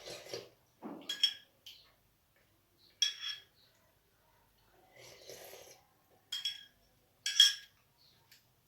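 Dishware clinking four times, short sharp ringing clinks, with soft breathy sips in between as the soup is tasted.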